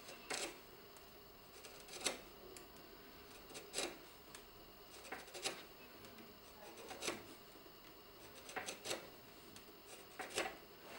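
Hand-pushed carving gouge paring into a small wooden organ key front: short, crisp cuts, one about every one and a half seconds.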